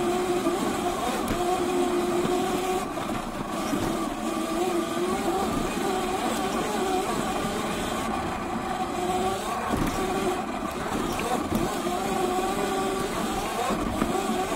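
Sur Ron X electric dirt bike under way: its motor and drivetrain whine, the pitch wandering up and down, over a steady rushing noise of knobby tyres on the dirt trail and wind.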